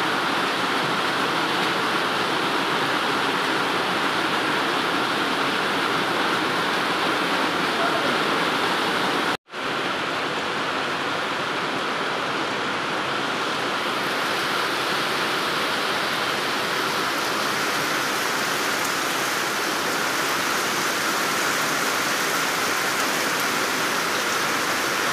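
Heavy rain falling steadily as an even hiss, cut off for a split second about nine seconds in, then going on unchanged.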